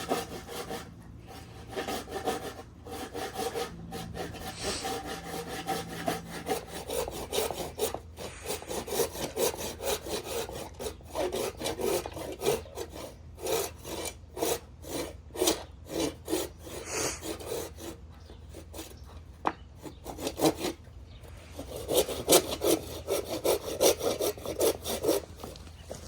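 Hand saw cutting through a wooden board, rapid back-and-forth strokes with brief pauses now and then.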